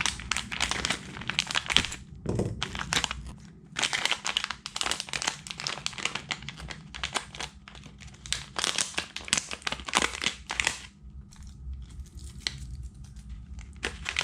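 Plastic packaging crinkling and rustling as it is handled and worked open by hand, in irregular bursts that thin out over the last few seconds.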